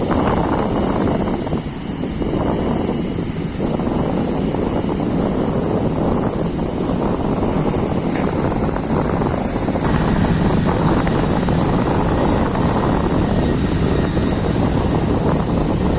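Aircraft engines running loud and steady, as an airliner takes off, growing slightly louder about two-thirds of the way through.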